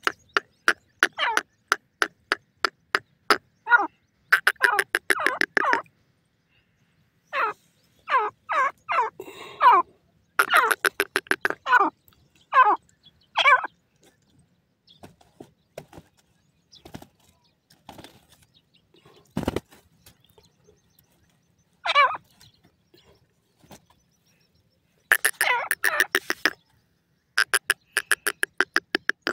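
Grey francolin calling: bursts of rapid, sharp chattering notes, some sliding downward in pitch, broken by pauses. A single dull thump comes about two-thirds of the way through.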